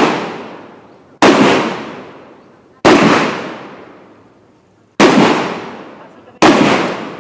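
M14 rifle (7.62×51mm NATO) fired in slow semi-automatic shots: four sharp reports about one and a half to two seconds apart, each trailing off in a long echo that fades over more than a second.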